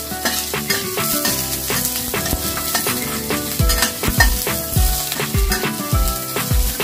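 Chopped garlic and onions sizzling in oil in a stainless steel wok, with a spatula stirring and scraping against the pan. Background music runs underneath, with a low beat coming in about halfway.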